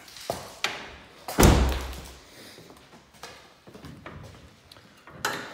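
A 2000 Honda Civic hatchback's hood latch being released and the hood opened: a few sharp clicks and knocks, with one loud thump about one and a half seconds in.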